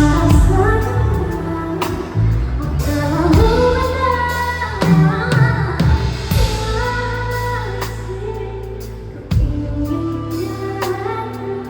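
Pop band playing: a woman singing a melody over a drum kit, with drum hits at a steady pulse and low sustained bass notes underneath.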